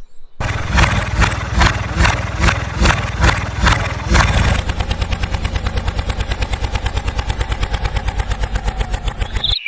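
A vehicle engine sound, starting with slow, heavy chugs about three a second, then settling about halfway through into a faster, even idle of about eight beats a second, and cutting off just before the end.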